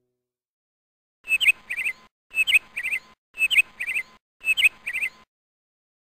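Canary chirping: the same short phrase, a sharp high chirp followed by a quick pair of notes, repeated four times about a second apart, starting just over a second in.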